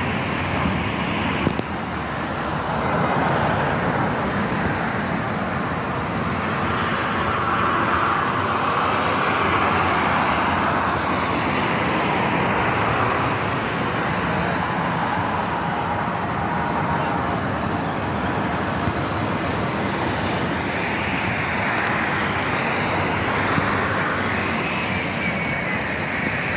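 Sea surf washing ashore: a steady rushing noise that swells and eases slowly over several seconds.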